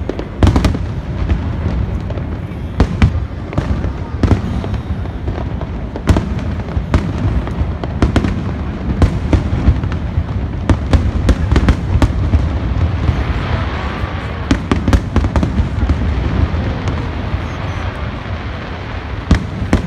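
Aerial fireworks bursting one after another: sharp bangs over a continuous low rumble, coming thickest a little past the middle.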